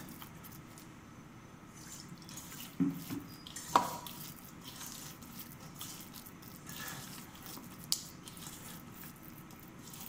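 A hand squelching and squeezing a wet spice paste in a stainless-steel bowl, with a few sharp clinks against the bowl, the loudest about four seconds in.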